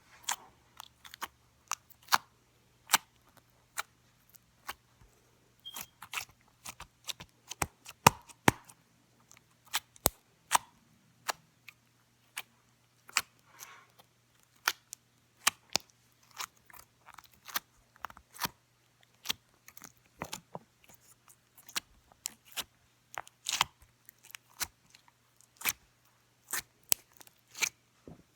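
Slime being poked, giving sharp little pops and clicks at irregular intervals, a few a second.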